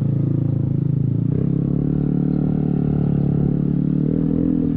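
Yamaha Aerox scooter engine running under way, its note climbing gradually as it accelerates, then easing off near the end.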